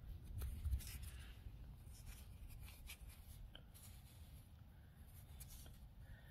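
Faint scratching and rubbing as fingers pry a chert arrowhead out of loose, tilled soil and brush the dirt off it, a few light scrapes at a time, most of them in the first half.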